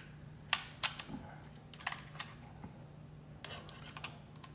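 Sharp plastic clicks and taps, about seven, spaced irregularly, from fingers handling and pressing on the case of a plastic alarm clock. A low steady hum runs underneath.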